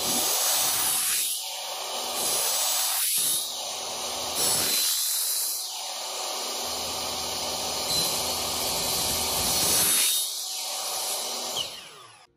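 Miter saw with a non-ferrous metal-cutting blade running and cutting into Schluter metal tile trim in several short passes, its pitch rising and falling each time. The saw stops near the end.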